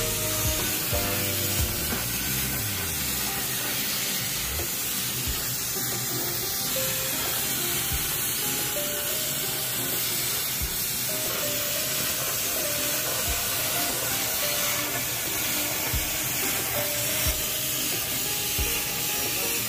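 CNC plasma cutter's torch cutting steel plate: the plasma arc gives a steady hiss, with faint music underneath.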